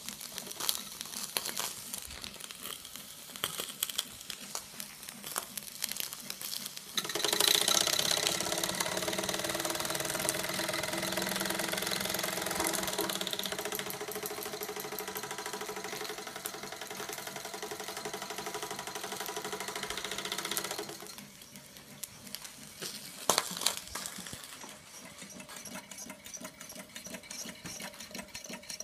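Small steam engine of a Mamod model steam crane running fast and steadily with a rapid mechanical chatter. It starts about a quarter of the way in and cuts off abruptly about fourteen seconds later. Light clicks and knocks come before and after it, with one sharp click near the end.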